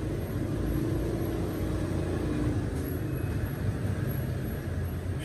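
Steady low rumble of road traffic, with a faint engine hum over the first couple of seconds.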